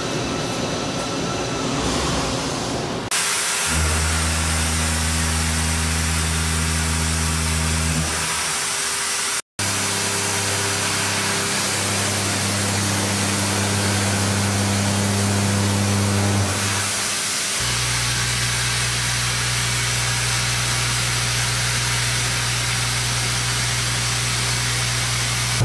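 Hwacheon D2-5AX five-axis machining center cutting steel: tapping carbon steel, then a high-feed cutter and a face mill working mold steel. Each cut is a steady machine hum over a constant hiss. The hum's pitch changes abruptly about 3 s in, after a brief dropout near 9.5 s, and again about 17 s in.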